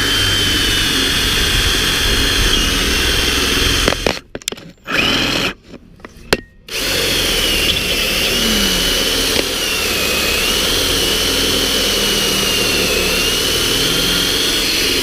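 Power drill boring holes with a newly bought bit, its motor whine wavering in pitch under load. It runs steadily, stops about four seconds in, gives two short bursts, then runs steadily again from about seven seconds in.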